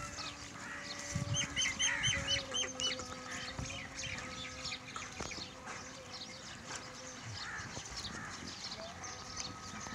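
Small birds calling, with a quick run of about seven repeated high chirps about a second in and scattered chirps after, over a faint steady low hum.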